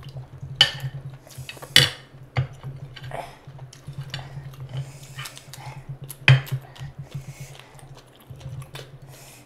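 Mukbang eating with bare hands: wet squishing of fingers working rice and curry on plates, with chewing and lip-smacking. A few sharp clinks of tableware stand out, the loudest about half a second, two seconds and six seconds in, over a low steady hum.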